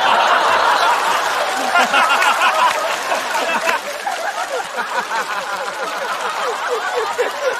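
Studio audience laughing, many people at once, loudest in the first few seconds and easing off toward the end.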